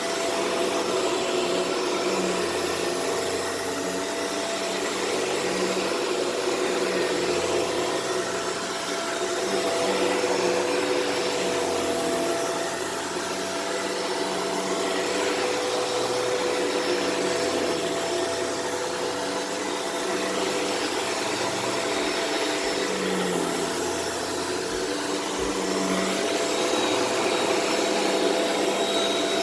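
Shark Rotator Powered Lift-Away vacuum running continuously while vacuuming powder off a carpet: a steady motor hum and whine over airflow noise, the level rising and falling gently every few seconds.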